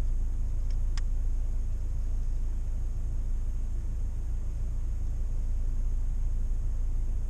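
Steady low rumble of the UAZ Patriot's engine idling, heard inside the cabin. A couple of faint clicks come about a second in.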